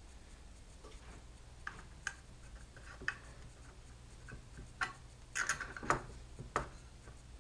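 Faint metal clicks and ticks from a 3 mm hex key and a small wrench tightening a screw and nylock nut on a V-wheel: a few isolated clicks at first, coming more often from about five seconds in.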